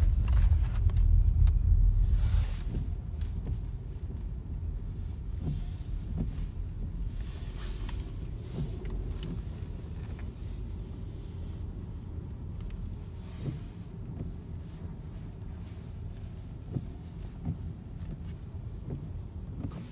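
Audi car's engine and tyres heard from inside the cabin as it pulls away and drives slowly: a low rumble, louder for the first two seconds, then steady and lower.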